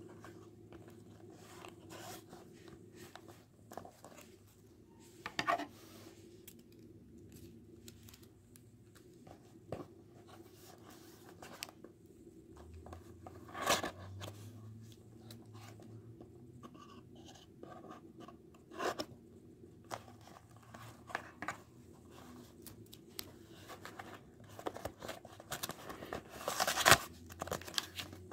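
Scissors cutting the packing tape on a small cardboard box, with scattered snips, scrapes and handling of the box. Near the end come louder bursts of cardboard and paper tearing.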